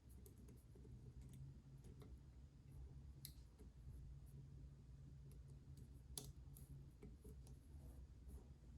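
Faint, scattered clicks of a lock pick and tension wrench working the pins of a pin-tumbler challenge lock held in a deep false set. The clicks are irregular, with a sharper one about three seconds in and another about six seconds in, over a low steady hum.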